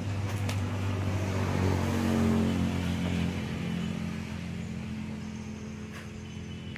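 A motor vehicle's engine hum passing by: it grows louder to a peak about two seconds in, then slowly fades.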